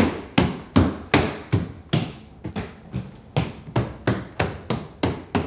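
Footsteps climbing wooden stairs: a steady run of sharp steps, about three a second.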